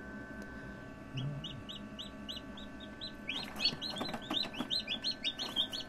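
Newly hatched chicks peeping inside an incubator: a run of short, high, evenly spaced peeps starts about a second in, and about halfway through a second chick joins, so the peeps come faster and overlap. A steady hum from the incubator runs underneath.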